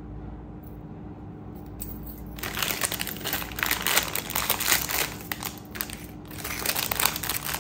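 Thin clear plastic pouches crinkling as hands handle earrings and slip them into the bags, starting about two seconds in. Before that there is only a faint steady hum.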